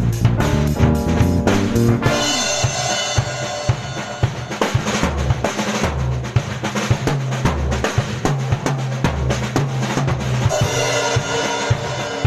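Drum kit played in a busy solo of snare, bass-drum and rimshot hits over a low bass line. The keyboard chords drop out about two seconds in, and cymbal crashes ring near the start and again near the end.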